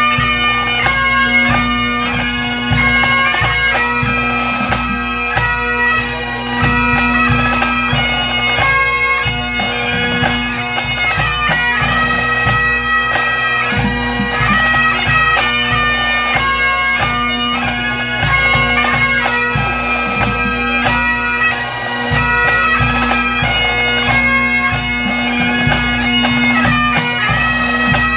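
Pipe band playing: Great Highland bagpipes with a steady drone under the chanter melody, and drums beating underneath.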